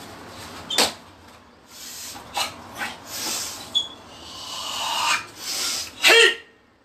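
Martial artist performing a Việt Võ Đạo form: a series of sharp quick hits and hissing forceful exhalations, ending in a loud shout about six seconds in.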